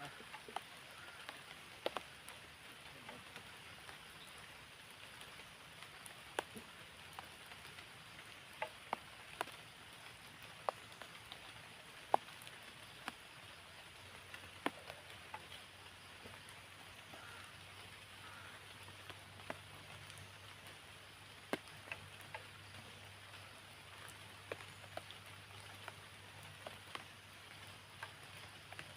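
Light rain falling: a steady soft hiss with irregular sharp drip taps scattered through it.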